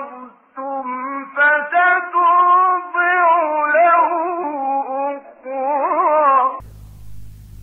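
A male Quran reciter chanting melodically, one long ornamented line with wavering pitch and a quick trill near the end. The voice stops about six and a half seconds in, leaving a low steady hum.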